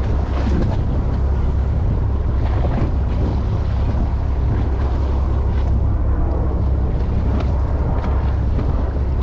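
Steady wind rumble on the microphone aboard a boat at sea, with the noise of the water and the boat beneath it.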